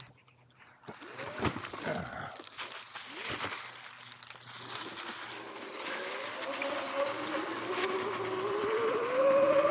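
Sur-Ron X electric dirt bike: a few knocks and clatters as it rolls over a fallen log, then its electric motor whine rising in pitch and growing louder as the bike accelerates, over the hiss of tyres on dry leaves.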